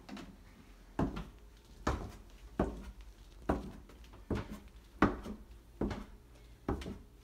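Footsteps going down open wooden basement stairs: a steady series of about eight knocks on the wooden treads, one a little under every second, starting about a second in.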